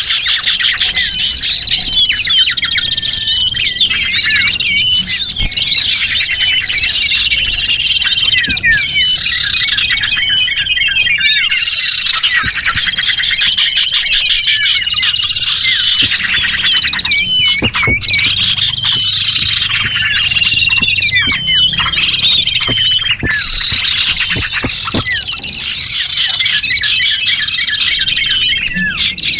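Small songbirds chirping and twittering in a dense, continuous chorus, with short high whistled notes repeated again and again: a lure call recording for drawing small birds in.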